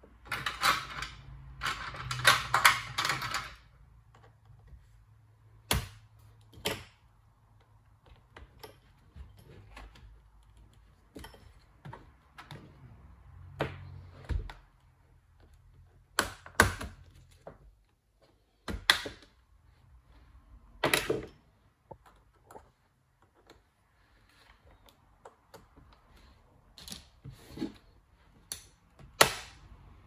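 Plastic bottom cover of a Dell Latitude 5480 laptop being pried off with a plastic spudger: a quick run of clicks and snaps near the start, then single sharp snaps every few seconds as the cover's clips pop loose.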